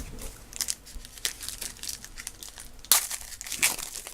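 Crinkling and rustling of a trading card pack wrapper being handled, with a few sharper crackles about three seconds in.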